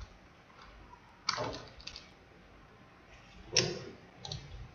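A few isolated computer keyboard and mouse clicks, two of them louder than the rest, against a quiet room.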